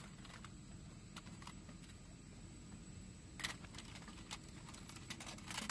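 Scattered clicks and clatter of AK-47 rifles being handled and set down on a ship's deck, over a steady low hum; the loudest knock comes about three and a half seconds in, with a quick run of clicks near the end.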